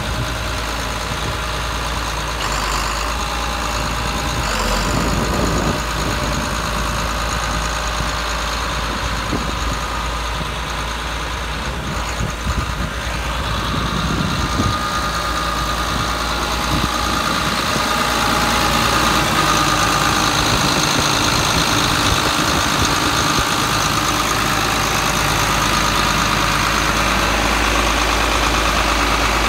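John Deere 4850 tractor's six-cylinder diesel engine idling steadily, a little louder past the middle.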